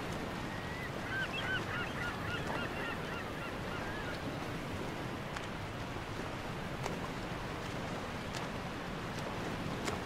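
Steady wash of ocean surf, with a run of about a dozen short, quick bird calls about one to four seconds in.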